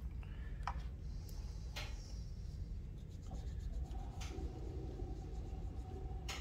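Paintbrush working tempera paint: a few short taps and scrapes as the brush is worked in the water cup and paint tray, then soft brushing of the bristles on paper.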